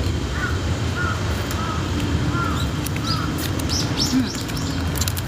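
Small birds chirping outdoors: a run of short, quick chirps about twice a second, then higher chirps around the middle, over a steady low background rumble.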